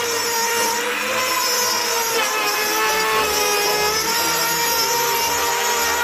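Table-mounted circular saw running and cutting wood, its motor whine wavering and dipping in pitch under load.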